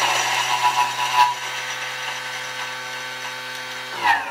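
Thermomix food processor's blade spinning at top speed (speed 9) to mince ginger: a loud, steady high-pitched motor whine, rougher for about the first second while the blade chops the ginger pieces, then smooth. Near the end the motor stops and winds down with a falling pitch.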